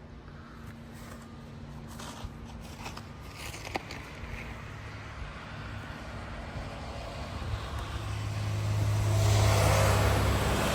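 A road vehicle approaching, its low engine drone and tyre noise building steadily and loudest over the last couple of seconds.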